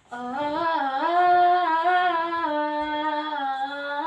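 A female voice, unaccompanied, holding one long sung note that steps up and down in pitch a few times and breaks off at the end.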